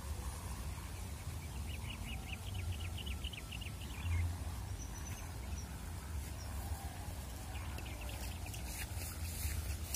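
Wind buffeting the microphone as a steady low rumble, with a bird's rapid chirping trill from about two seconds in to about four seconds in, and a fainter one near the end.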